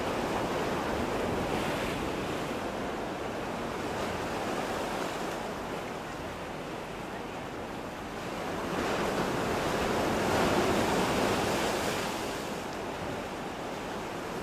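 Sea waves breaking and washing on the shore in rising and falling swells, the loudest surge from about nine to twelve seconds in.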